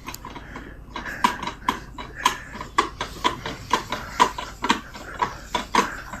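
A run of light, sharp clicks and knocks, irregular, about one or two a second, each with a short ring.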